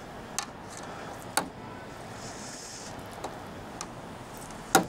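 A few sharp clicks and taps from chopsticks lifting and handling noodles over a plastic bowl, the loudest just before the end, over a steady outdoor hiss.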